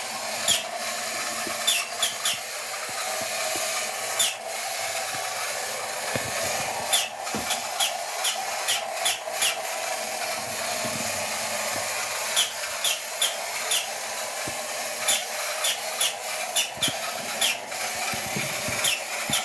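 A 1960s battery-operated toy police car running, its small electric motor making a steady whir with frequent short, sharp screeching squeaks and clicks scattered through it.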